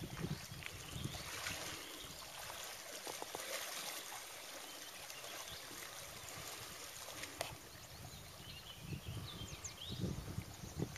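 Shallow, muddy river water trickling and lapping, with low rumbling on the microphone that comes and goes.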